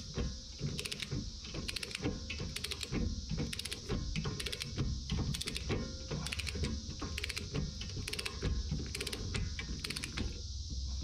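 Click-type torque wrench ratcheting down a rear axle hub nut by hand, its pawl clicking in quick runs with each back-swing. The clicking stops shortly before the end.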